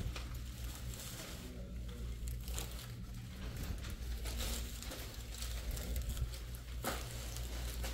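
Irregular plastic rustling and crinkling as rubbish is handled and put into a bin, over a steady low hum.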